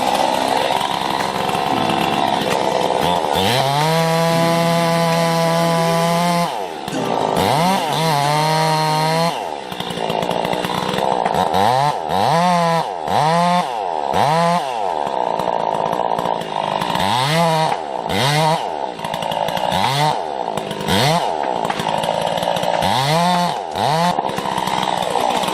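Petrol chainsaw running at high throttle, then revved up and let drop back again and again, about a dozen times in the second half.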